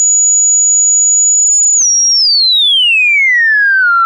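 God's Box Gem four-pole filter self-oscillating with no input signal, giving a very pure, sine-like tone held steady at a very high pitch. About two seconds in, after a faint click, the tone glides steadily down in pitch as the cutoff is turned down.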